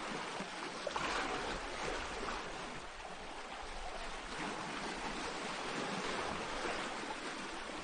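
Small sea waves washing onto a pebble shore: a steady hiss of surf that swells a little now and then.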